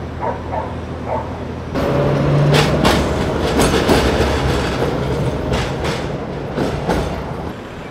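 A Tatra K2YU articulated tram passes close by, starting suddenly about two seconds in. It runs with a steady whine, and its wheels clack several times over the rail joints before it fades near the end.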